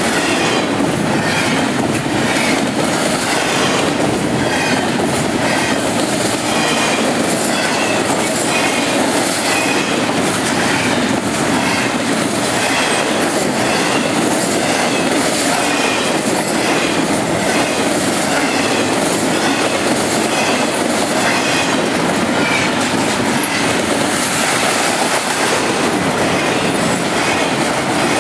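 Norfolk Southern intermodal freight train's loaded well cars rolling past close by: a loud, steady rumble of steel wheels on rail, with repeated clacks over rail joints and brief wheel squeals.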